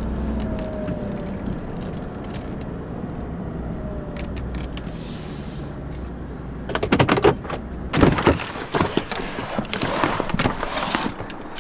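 Steady low rumble of road and engine noise inside a moving GMC Sierra pickup's cab. From about seven seconds in, a run of sharp clicks and knocks from the truck's door and interior being handled.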